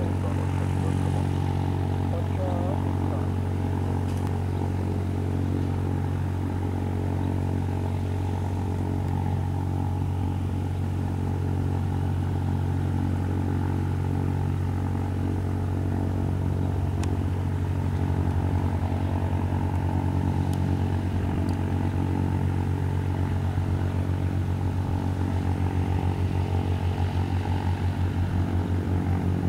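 The four-cylinder Lycoming piston engine and propeller of a Reims-Cessna F172P Skyhawk, running steadily as the light plane taxis. It grows a little louder, with a throbbing beat that builds over the last ten seconds or so as the plane comes closer.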